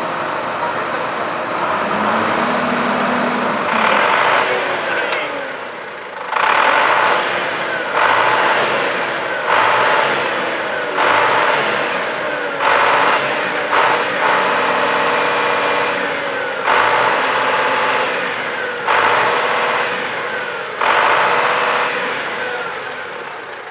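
Farm machinery engines running, revved in a string of short bursts about every two seconds, each burst dying back down.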